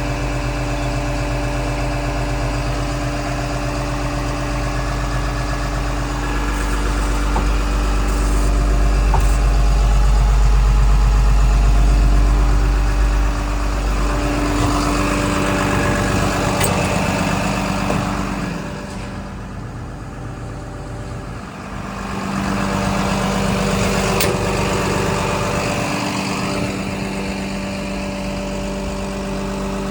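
Komatsu D61PXi-24 bulldozer's six-cylinder diesel engine running. Its speed and loudness rise and fall: louder with a deep rumble in the first half, a drop in engine speed and level shortly past the middle, then back up.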